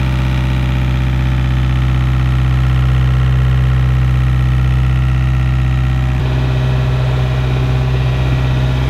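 Volvo Penta inboard diesel running steadily, fed from a jerry can after stalling on water in its fuel filter. Its tone changes about six seconds in.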